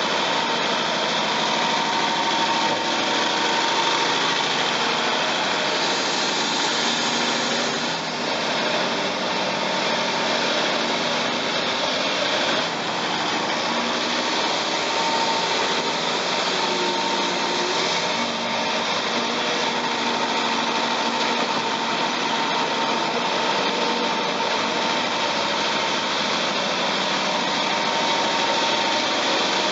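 Caterpillar D6T track-type bulldozer and Caterpillar 352F excavator running steadily while the dozer pushes mud with its blade. Their diesel engines make a constant heavy drone with a steady high whine over it.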